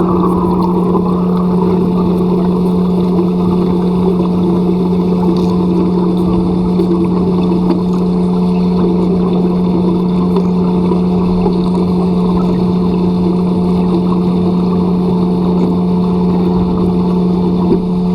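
Steady mechanical drone with a constant low hum and several steady tones above it, like a running motor.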